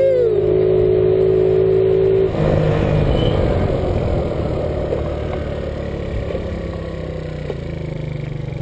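Small motor scooter engine running while riding at low speed, with a thin steady whine that stops about two seconds in; the engine then grows gradually quieter.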